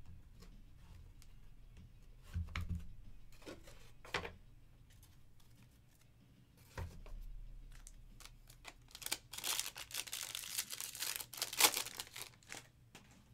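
Scattered light taps and clicks of trading cards being handled, then, about nine seconds in, a few seconds of dense crinkling and tearing as a 2022 Topps Series 1 jumbo pack's wrapper is ripped open.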